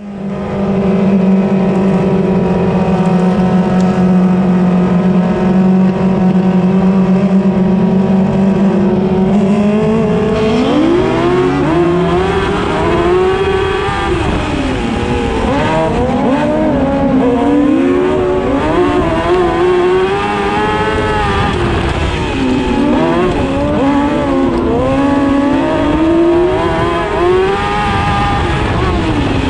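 Dwarf car's motorcycle engine heard from inside the car. It runs at a steady pitch for about ten seconds, then revs up and rises and falls repeatedly as the car accelerates and lifts off around the dirt oval.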